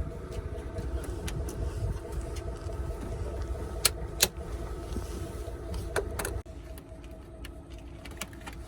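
A truck's steady low mechanical running noise, with a few sharp metallic clicks from work on the truck, cuts off abruptly about six and a half seconds in, leaving a fainter steady hum.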